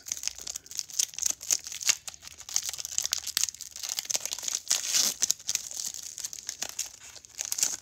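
Foil wrapper of a Pokémon trading-card booster pack crinkling and tearing as it is pulled open by hand, many quick irregular crackles; the pack is hard to open.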